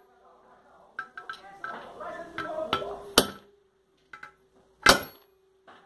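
Hammer blows on a ball bearing's outer edge as it is driven into a Sundown MAX 125 motorcycle engine crankcase: two sharp metallic strikes about a second and a half apart, the second the louder.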